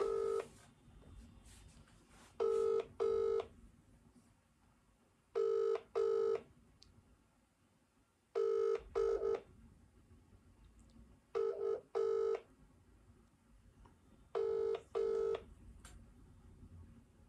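British-style double ringback tone from a mobile phone's speaker, an outgoing call ringing out unanswered: pairs of short rings, about one pair every three seconds, six times over.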